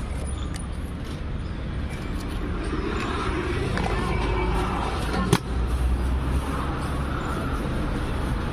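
Steady street traffic noise, a low rumble of road vehicles, with one sharp click about five seconds in.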